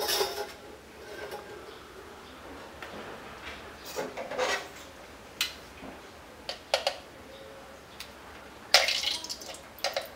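Metal tongs clicking and scraping against the ridged metal plate of an electric grill pan as pieces of fish are laid on it. The strokes are short and irregular, and the loudest comes about nine seconds in.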